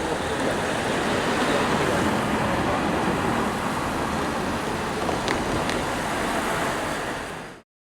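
Steady rushing noise of passing vehicles, with a few faint clicks, that cuts off suddenly near the end.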